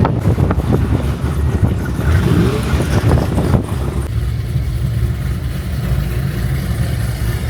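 Car engine running, with a short rising rev about two to three seconds in, then settling into a steady low drone.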